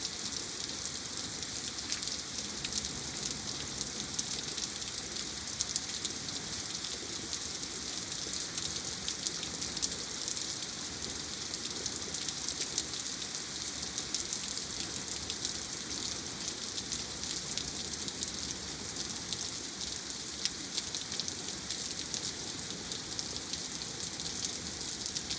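Steady rain from a tropical storm falling and pattering on surfaces, a dense hiss of drops.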